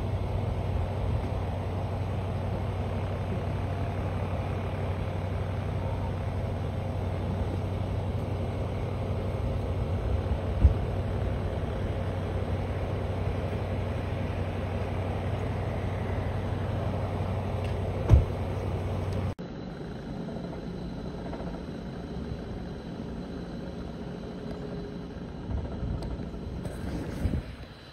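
A vehicle engine idling with a steady low hum, broken by two short knocks about 10 and 18 seconds in. About 19 seconds in it gives way abruptly to a quieter steady background noise, with a few faint knocks near the end.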